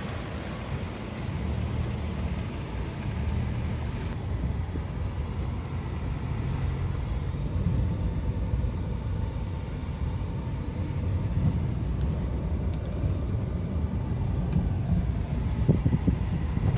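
Car driving, heard from inside the cabin: a steady low rumble of engine and road noise that grows slightly louder near the end.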